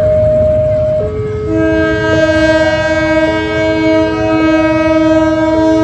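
Level crossing warning alarm alternating between two tones, switching about once a second, while the approaching CC201 diesel locomotive sounds one long steady horn blast starting about one and a half seconds in.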